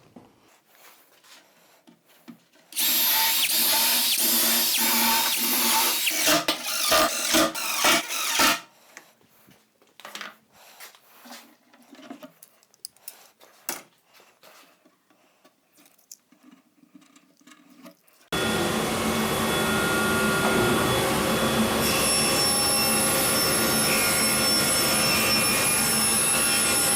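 Cordless drill-driver driving screws into a plywood cabinet: a run of several seconds that breaks into short trigger pulses as the screw seats. Light knocks and handling follow, then about 18 seconds in a longer steady run of a power tool.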